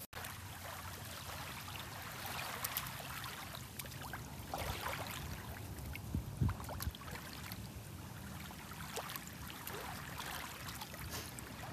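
Small waves lapping on a stony shore, with light splashing and a few knocks as a golden retriever paws at a waterlogged stick in the shallows.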